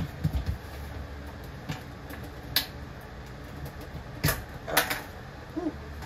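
A handful of sharp, irregularly spaced clicks and knocks from a Lasko box fan's parts being handled as its old feet are worked off the frame.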